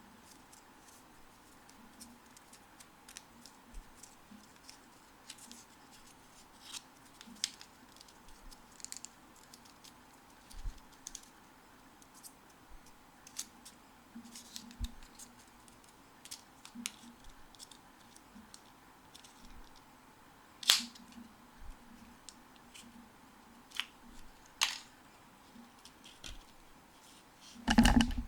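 Hands handling the watch's box and packaging: scattered light clicks, taps and rustles, with a sharp snap about three quarters of the way through and a louder burst of handling near the end.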